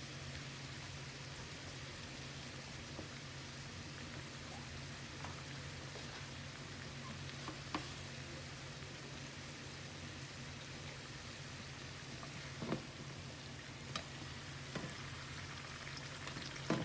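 Guyanese bakes (fried dough) sizzling steadily in hot oil, with a few scattered sharp pops and clicks.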